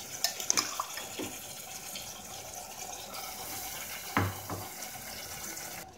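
Wet, brine-soaked chicken pieces sizzling steadily in hot oil and fried onions in an aluminium pressure cooker, with a few light clicks in the first second and a soft thud about four seconds in as pieces drop into the pot.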